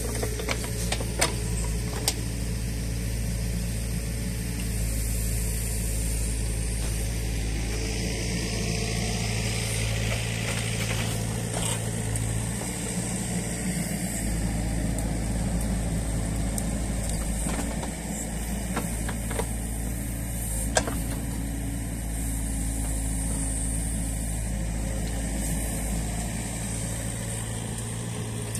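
Mini excavator (New Holland Kobelco E50.2) diesel engine running steadily while it works, with a few sharp knocks of the steel bucket near the start and twice later on.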